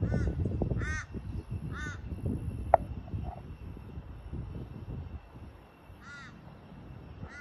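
A bird giving harsh caws: three about a second apart, then more near the end. Wind rumbles on the microphone, strongest at first and easing off, and there is one sharp click a little under three seconds in.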